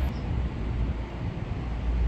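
Wind rumbling on the microphone over steady outdoor background noise.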